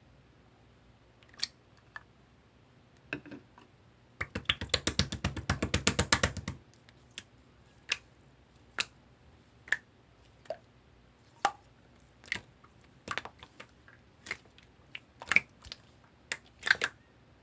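Blue clear slime being squeezed and poked by hand, making sharp wet clicks and pops. About four seconds in comes a quick run of clicks, around eight a second for two seconds, followed by single pops every half second to a second.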